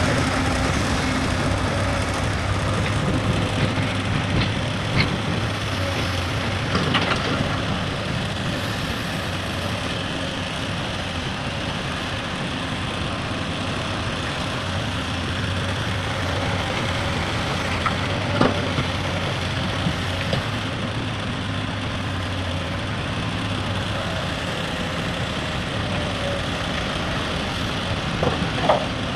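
Heavy diesel machinery (excavator and dump truck engines) running steadily, with a few short sharp knocks scattered through.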